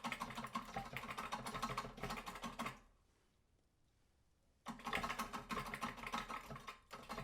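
Toilet flush handle worked over and over, rattling and clicking quickly, while the toilet fails to flush. There are two bouts of rattling, split by about two seconds of silence near the middle.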